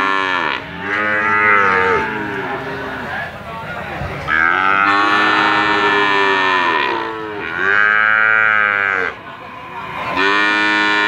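Young calves mooing: a run of long, loud calls one after another with short gaps between them, each call's pitch arching and falling away at its end.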